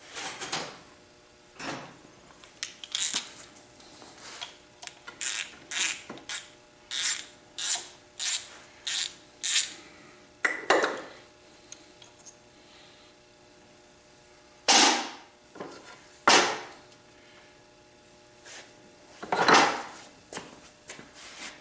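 Hand tools working metal parts of an air compressor's high-pressure valve assembly as it is taken apart: a run of short quick strokes about every half second, then a few louder, separate metal clatters.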